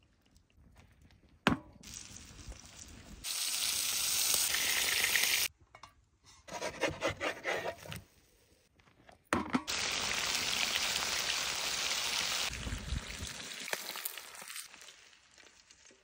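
Flour-dredged whiting frying in hot oil in a shallow black steel pan: a loud sizzle that starts and stops in several stretches, with crackling pops between them and fading away near the end. A single sharp click comes about a second and a half in.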